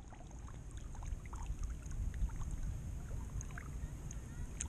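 Shallow seawater lapping and sloshing at the waterline right at the microphone: a steady low rumble with many small scattered clicks and drips.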